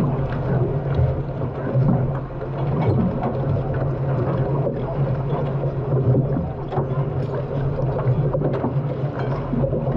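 Onboard an unlimited hydroplane: its turbine engine drones steadily at a low pitch under a constant rush of water and wind noise on the microphone.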